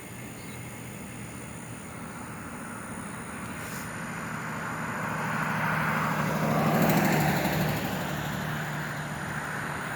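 A road vehicle passing by, its engine hum and tyre noise swelling to a peak about seven seconds in and then fading away.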